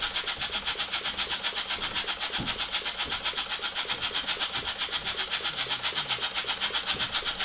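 Model single-cylinder vertical marine steam engine, 2-inch bore by 2.5-inch stroke, running steadily on compressed air: a fast, even chuff of exhaust air, about seven puffs a second.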